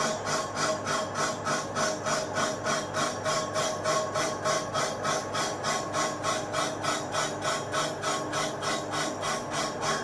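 Vertical CNC wheel repair lathe (DCM35P-2) turning a spinning alloy wheel, the cutting tool scraping across the wheel face in an even rasping rhythm of about three to four pulses a second, with a faint steady tone underneath.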